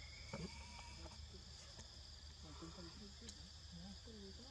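Faint, steady high-pitched chirring of insects at several pitches, with a low hum beneath it. Short, soft low vocal sounds come and go in the second half, along with a couple of faint clicks.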